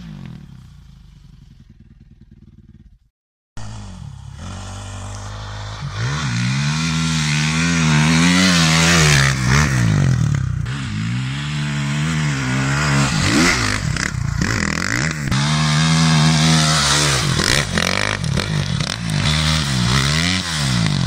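Dirt bike's single-cylinder engine revving hard in repeated rising and falling surges as it climbs a loose sandy slope, with sand and gravel clattering and scraping. At the start a fainter engine fades away, then a brief break before the loud climb.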